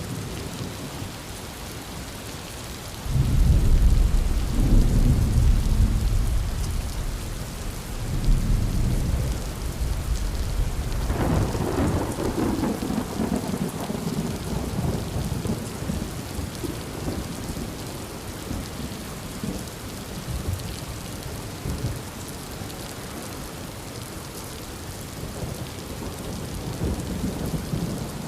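Heavy rain falling steadily with thunder: a deep rolling rumble breaks out about three seconds in and swells again near eight seconds, then a sharper, closer crack about eleven seconds in rolls away over several seconds.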